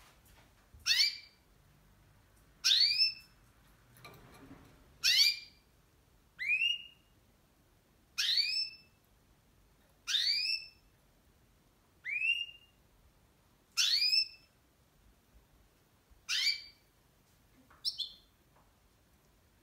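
Caged pet canary giving a whistled call over and over, about ten times, roughly every two seconds. Each call is a short upward-sweeping whistle.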